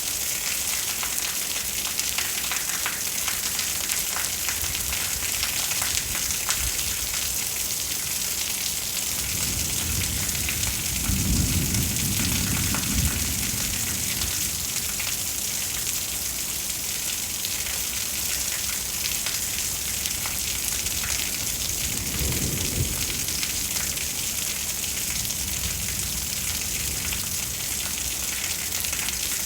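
Steady rain with many small drop ticks, and two rolls of thunder: a long low rumble starting about ten seconds in and lasting a few seconds, and a shorter one a little after twenty seconds.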